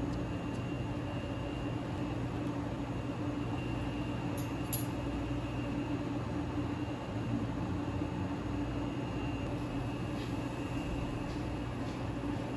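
Steady hum and room noise behind a cafe counter, with two light clicks about four and a half seconds in as cutlery and a cup are set down on a serving tray.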